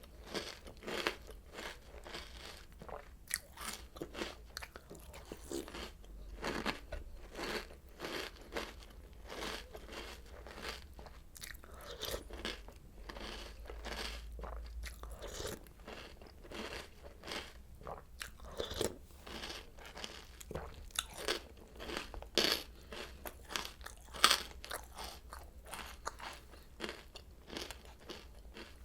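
Close-miked chewing of Oreo O's cereal: a steady run of crisp crunches, a few a second, with one louder crunch late on.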